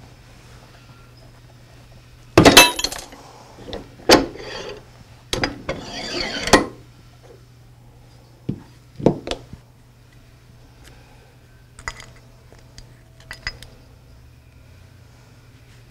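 Metal clanks and a clatter as the air motor's rotor is pressed out of its rear plate on a hand-operated arbor press: a loud clatter about two and a half seconds in, more knocks and scraping over the next few seconds, two duller thuds near nine seconds as parts are set down, then light clicks of the steel parts being handled.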